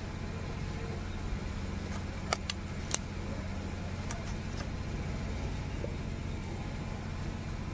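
Raw chicken pieces being cut on a boti blade, with a few sharp clicks and cracks between about two and five seconds in as the meat and bone are pressed through the edge. A steady low hum runs underneath.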